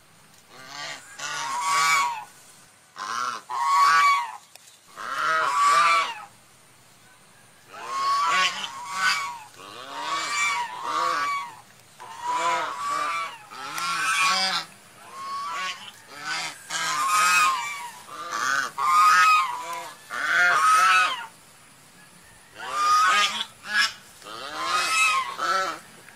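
Swan calls, repeated in bursts of several calls about a second apart, with short pauses between the bursts.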